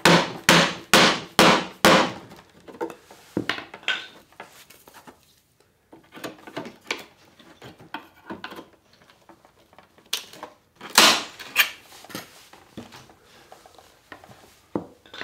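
Rubber mallet striking a wooden cabinet piece to knock it loose from its joint: a quick run of hard knocks, two or three a second, for the first two seconds. Lighter scattered knocks follow, and a loud cluster comes about eleven seconds in.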